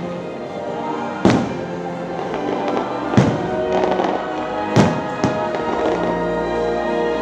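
Fireworks bursting over loud show music: four sharp bangs, the last two close together about five seconds in, with the music playing steadily throughout.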